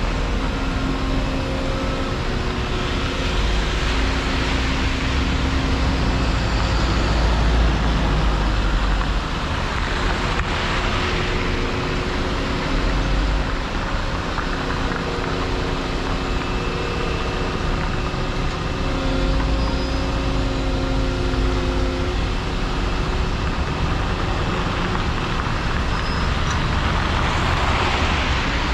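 Volvo EC235EL excavator's diesel engine running with a steady deep rumble and a hum whose tones come and go. Vehicles swish past on the wet road about ten seconds in and again near the end.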